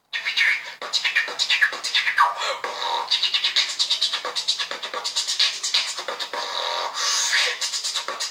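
Human beatboxing: a fast, dense run of percussive mouth sounds in a steady rhythm, with little deep bass.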